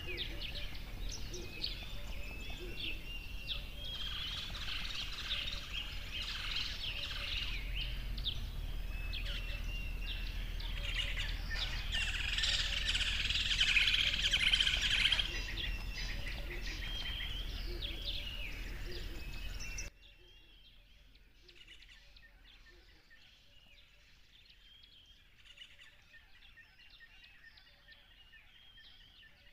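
Many birds calling and chirping at once, short chirps and whistles overlapping over a steady background of noise. About two-thirds through it cuts abruptly to a much quieter, sparser birdsong.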